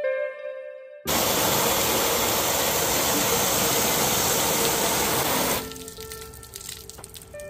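Water sprayed hard from a hose onto a car's coated hood: an even, loud hiss that starts suddenly about a second in and cuts off suddenly after about four and a half seconds. Soft plucked-string background music plays before and after the spray.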